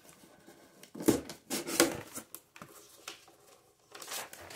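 Cardboard shipping box being opened by hand: short scraping rustles of cardboard flaps and paper, a cluster about a second in and another near the end.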